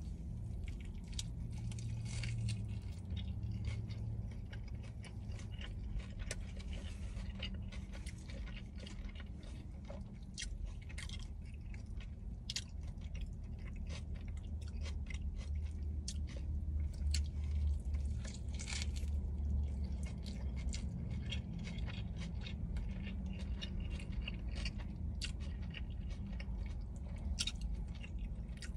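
Close-up chewing and biting of a double cheeseburger, with many quick wet mouth clicks and some crunching throughout, over a steady low rumble.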